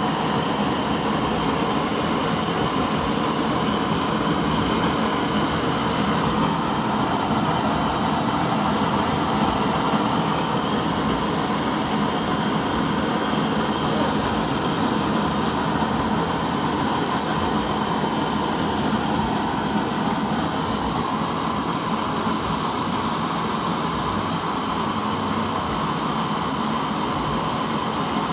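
Double-burner oil stove running with both burners lit: a steady rushing noise from the flames and the electric blower fans mounted under the stove.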